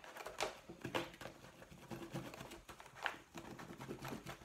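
A plastic creaser tool pressed and rubbed along the fold of a PVC mesh zipper file bag, making irregular soft scrapes and crinkles, a few of them sharper.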